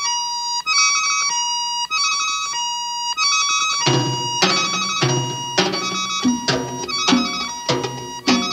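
Cumbia music playing: a high, repeating melody alone at first, then drums and bass come in about four seconds in with a steady dance beat.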